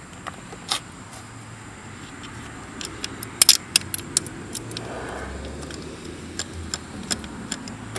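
Scattered light clicks and small metallic rattles from parts being handled in a scooter's engine bay, with a cluster of sharper clicks about three and a half seconds in, over a steady low hum.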